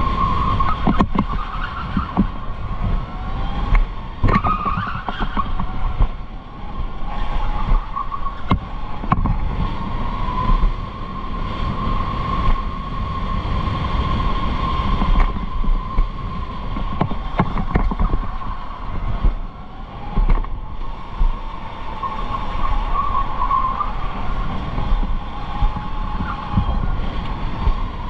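Electric go-kart motor whining: a steady high tone that sags and climbs in pitch as the kart slows and speeds up, over a low rumble, with occasional short knocks.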